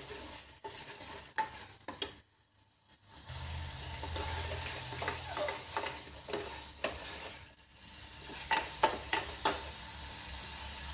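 A spatula stirring and scraping a thickening mixture of curdled milk and sugar in a pan on the stove, over a steady sizzle as it reduces; the stirring keeps it from sticking to the bottom. The sound drops out briefly about two seconds in, and a quick run of sharper scrapes comes near the end.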